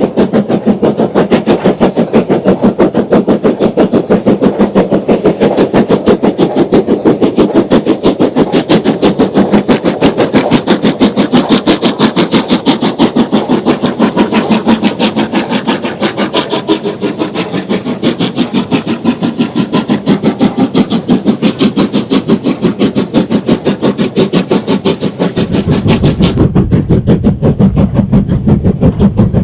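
Steam locomotive working hard up a steep gradient, its exhaust beating in a rapid, even rhythm. Near the end the beats turn deeper and duller.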